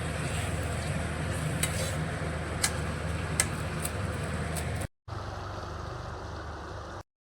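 Kitchen cooking sounds: a steady low hum with a few sharp clinks of a spoon against a pan while a vegetable dish is stirred. The sound breaks off briefly about five seconds in, resumes, and then stops.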